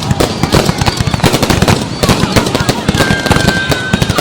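Fireworks going off in rapid succession: a dense stream of crackling bangs, with a high steady whistle for about a second near the end.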